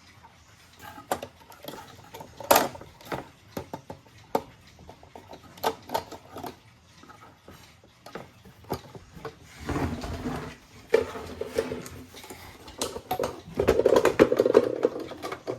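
Irregular clicks and knocks, not evenly spaced, with busier and louder clattering about ten seconds in and again from about thirteen to fifteen seconds in.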